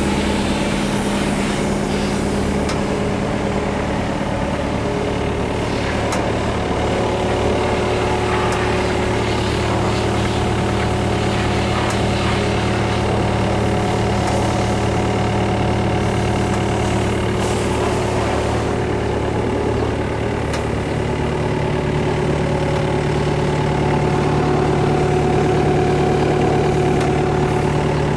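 Diesel engine of a 2009 Hyundai R55 mini excavator running steadily, its note shifting slightly about two-thirds of the way through.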